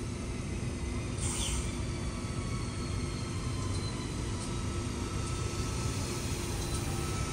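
Electric passenger train moving at the station platform: a steady rumble with a faint whine that drifts slowly in pitch. A short hiss about a second in.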